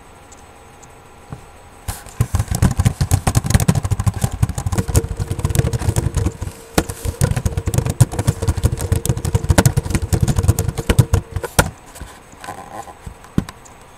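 Loud, dense clattering and knocking with a low rumble, close to the microphone. It starts about two seconds in, a steady hum runs through its middle part, and it stops shortly before the end.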